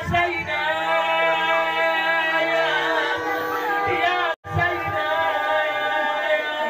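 A man's voice chanting a mournful masaib recitation into a microphone, in long held, wavering notes. The sound cuts out for an instant about four seconds in.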